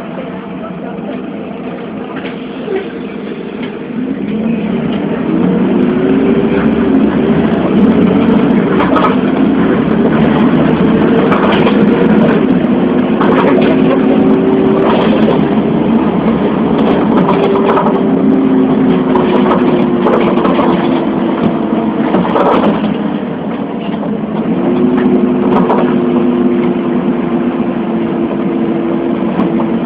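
Engine of a moving vehicle driving along a street. Its note rises as it picks up speed, slowly sinks, drops away about two-thirds of the way through, then climbs again, with scattered knocks and rattles.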